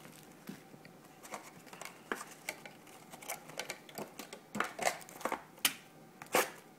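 Trading card pack packaging being handled and cut open: irregular small clicks, taps and scrapes, with a few sharper ticks in the second half.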